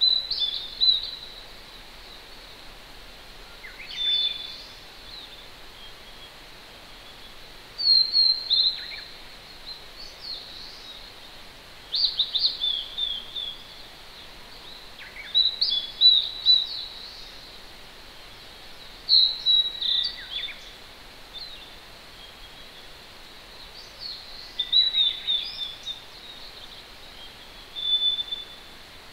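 A wild songbird sings short, high phrases of quick falling notes about every four seconds, over the steady hiss of a distant mountain stream.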